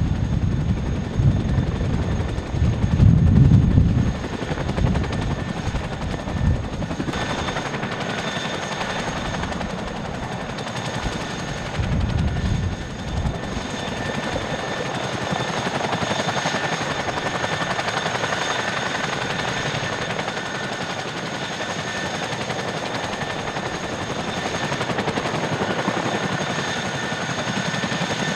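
CH-47 Chinook's tandem rotors beating in a rapid, steady chop as it hovers low, with a high turbine whine. Heavy low rumbling gusts come through in the first several seconds and briefly again about midway.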